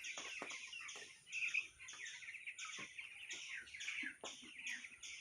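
A flock of two-week-old broiler chicks peeping, many high chirps overlapping continuously.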